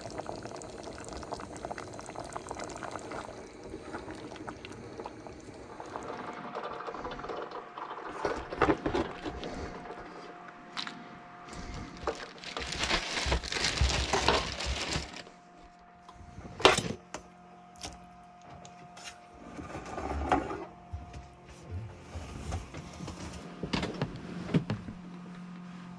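Thick curry-like sauce bubbling in a pot on a two-burner camp stove, with a ladle scooping and pouring it over rice, loudest around the middle.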